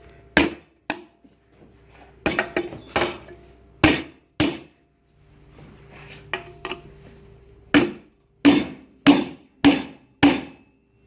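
Hammer striking a steel chisel driven between spot-welded steel sheets, sharp metallic blows in uneven groups, ending with five steady strikes about every half second. The sheets are being chiselled apart at the spot-weld nuggets, and the welds are holding.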